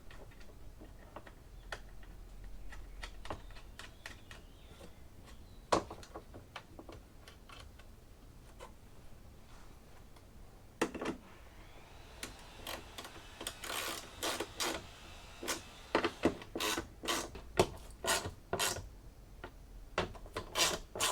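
Small car parts being handled, giving scattered clicks, taps and light rubbing. The clicks grow much busier about halfway through.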